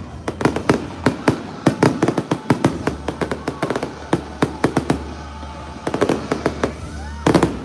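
Aerial fireworks going off in quick succession: many sharp bangs and crackles over a low rumble, with a loud burst near the end.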